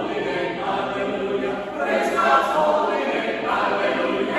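Church choir of men and women singing together, held sung phrases that change pitch every second or so.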